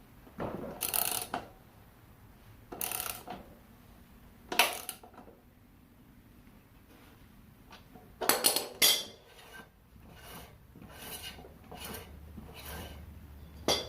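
Hand tools and metal bike parts clinking and rattling in short bursts, then a run of evenly spaced short metallic strokes near the end, as of a wrench being worked during reassembly.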